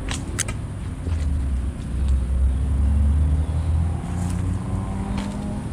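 A strong, uneven low rumble, with two sharp clicks near the start and another near the end.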